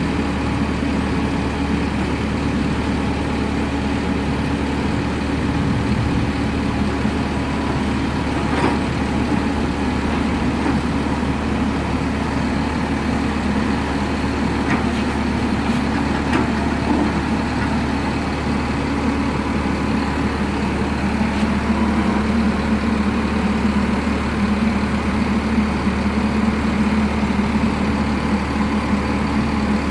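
Long-boom excavator's diesel engine running steadily under work, its note dropping slightly about two-thirds of the way through.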